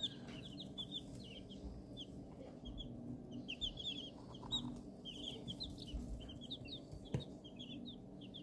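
A brood of eighteen young chicks peeping: many short, high chirps overlapping at an irregular pace.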